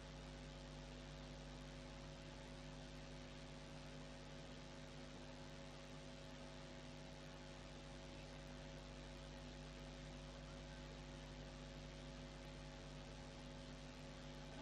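Faint steady electrical hum with hiss from a sound system, holding several steady tones and nothing else.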